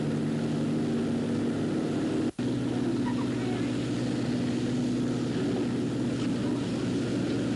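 Fire appliance engine running steadily at a low drone, with a brief dropout a little over two seconds in.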